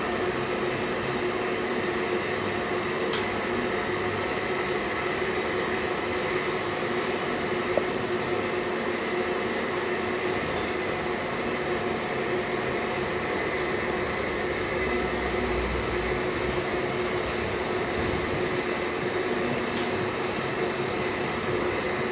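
Metal lathe running steadily while chambering a rifle barrel with a chamber reamer, its motor and gearbox giving an even hum with several constant whining tones. A short sharp tick about halfway through.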